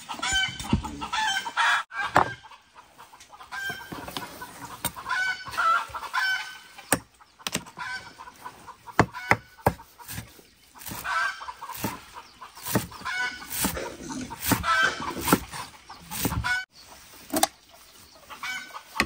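Chickens clucking in repeated short calls, with scattered sharp knocks mixed in.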